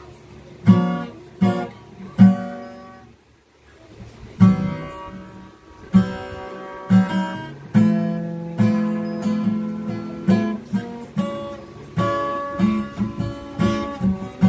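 Cutaway acoustic guitar strummed in chords, each strum ringing on, with a short lull about three seconds in before the strumming picks up again with longer-held chords.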